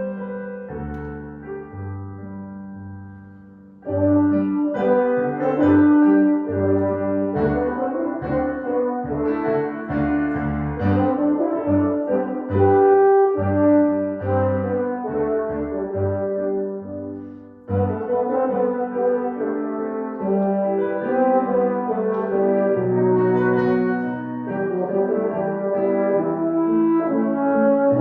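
Instrumental music of sustained, horn-like chords over a moving bass line. It fades away twice, about 4 s and about 17 s in, and each time comes back in at full strength on a new phrase.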